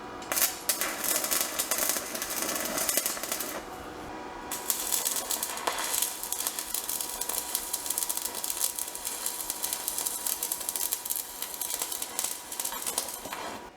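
Stick (arc) welder crackling as a weld is run, with a short break about four seconds in.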